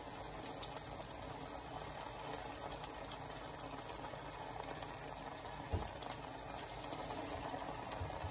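Egg-battered tortilla halves frying in very hot oil in a pan: a steady sizzle with fine crackles. A single soft knock comes a little past halfway.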